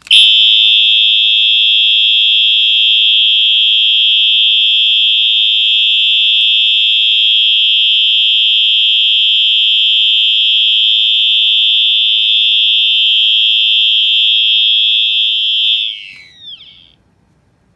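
Wheelock AES-EL1-WS-24 electronic horn strobe sounding a continuous, very loud, high-pitched horn tone for about sixteen seconds. At the end the tone falls in pitch and fades out.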